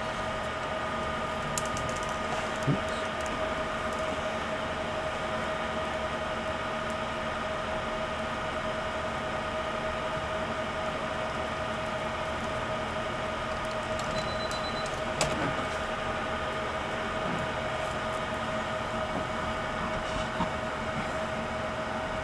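Steady hum and hiss with a couple of constant tones, broken by a few light clicks from small parts being handled as a replacement laptop screen is set in place and screwed in.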